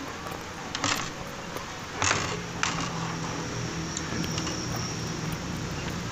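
Eating sounds: biting into and chewing a piece of sweet chili glazed fried chicken, with a few sharp crisp clicks about one and two seconds in.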